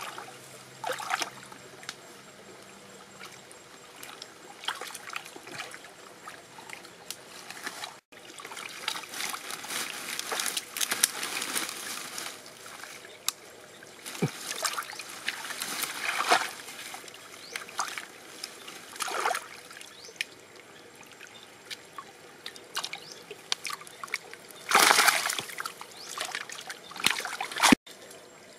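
Hands splashing and sloshing in shallow stream water while groping among submerged leaf litter and mud for fish, over the trickle of the stream, in short irregular bursts with a louder splash near the end.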